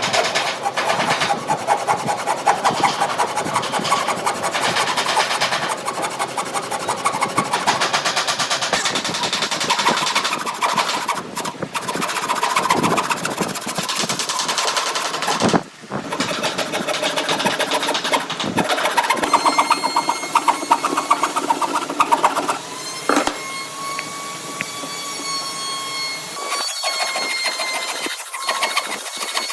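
Workshop power tools cutting and shaping wood: a dense rasping machine noise broken by a few sudden cuts, with a steady motor whine in the second half.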